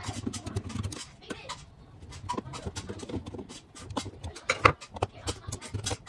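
Screwdriver turning the steel mounting screws of a range receptacle in a metal electrical box: a run of small, irregular metal clicks and scrapes, with a few louder clicks about four and a half seconds in.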